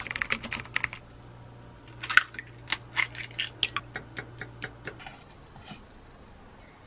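A quick run of light clicks and taps, like small objects being handled and set down, in two clusters, with a low steady hum underneath that stops about five seconds in.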